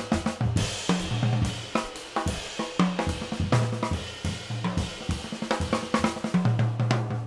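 Jazz drum kit playing busily, with snare, cymbal and bass drum hits, over low double bass notes; no horns sounding yet.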